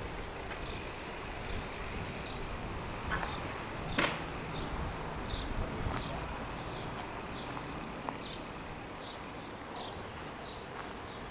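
Outdoor street ambience: a steady background hiss, with a short high chirp repeating about every two-thirds of a second and a sharp click about four seconds in.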